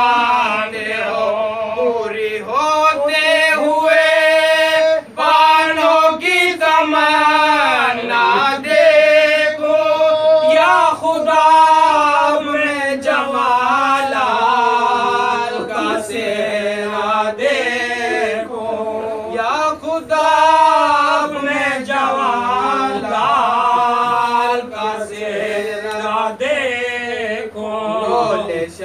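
Male voices chanting an Urdu Muharram elegy, unaccompanied, in long drawn-out melodic lines.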